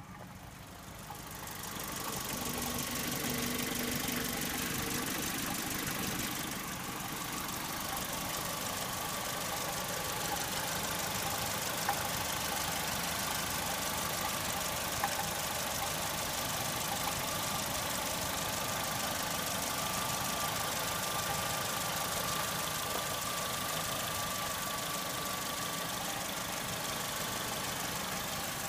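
Saturn S-series four-cylinder engine idling steadily with a knocking, clanking noise the owner likens to a muffled cowbell, which he suspects comes from the catalytic converter.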